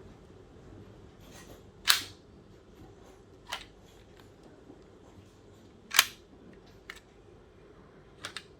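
Sharp plastic clicks of Lego parts, the loudest about two seconds in and again about six seconds in, with a softer one between, a faint one after, and a quick double click near the end.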